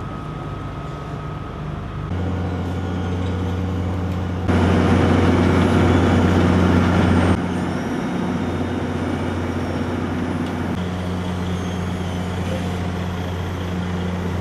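Diesel engines of asphalt paving machines, a paver and road rollers, running steadily with a low, even hum. A louder, rougher noise rises for about three seconds near the middle.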